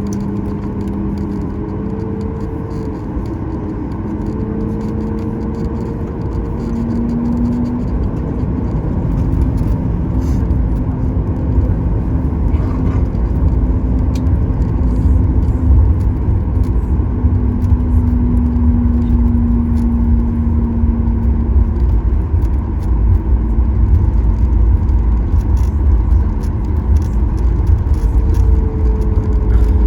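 Cabin noise of a Boeing 737 MAX 9 taxiing on the ground: a steady hum from the CFM LEAP-1B engines at low power, with engine tones that shift slightly in pitch, over a low rumble that grows louder after about eight seconds.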